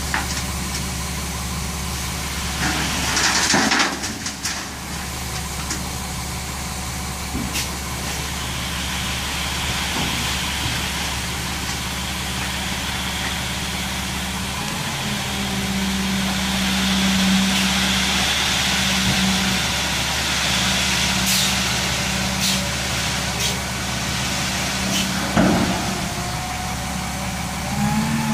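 Dump truck's diesel engine running steadily while the hydraulic hoist tips the box and the load of dirt slides out through the tailgate with a hiss. There is a brief loud rush about three seconds in, and the engine note strengthens midway as the box lifts higher.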